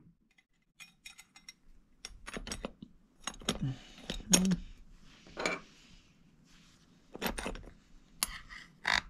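Small metal hardware being handled and fastened by hand: an irregular series of sharp metallic clinks and clatters, with a few brief scraping sounds between them.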